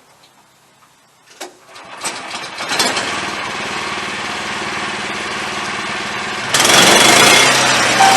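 Wood-Mizer LX25 band sawmill's engine revving up about two seconds in and then running steadily. About six and a half seconds in it turns abruptly louder and harsher as the band blade begins cutting into the log.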